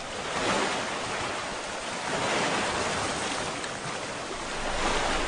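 Lake waves washing, a steady rushing of water that swells and eases.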